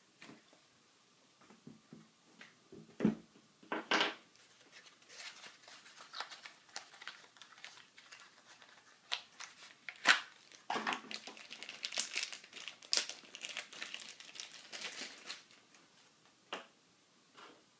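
Packaging being handled: a small cardboard parts box opened and a plastic bag crinkled as a rifle part is unwrapped. A couple of sharp knocks come first, then a long stretch of crinkling and rustling, loudest about ten and thirteen seconds in.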